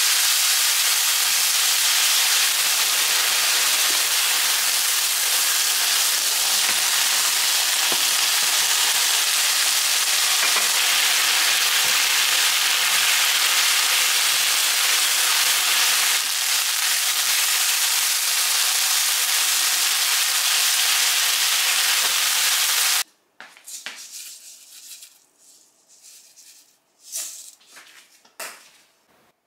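Julienned potatoes and carrots, and then sliced onion, sizzling in a frying pan as they are stir-fried with a spatula: a steady frying hiss. The hiss cuts off abruptly about 23 seconds in. A few faint clicks and knocks follow.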